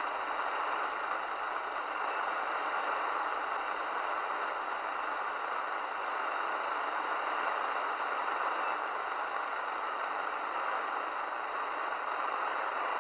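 Midland Alan 8001 CB radio receiving an empty channel: a steady, even hiss of static from its speaker between transmissions.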